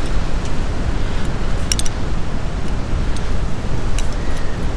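Steady low rumble of wind on the microphone mixed with the wash of ocean surf, with a few sharp clicks, the clearest about two seconds in and about four seconds in.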